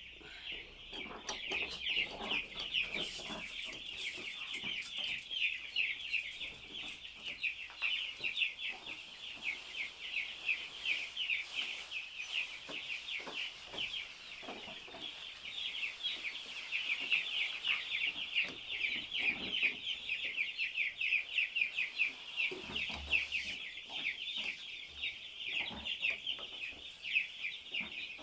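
A flock of young broiler chicks peeping continuously, many at once, in a dense high-pitched chorus. The chicks have been sprayed wet with disinfectant and are chilled.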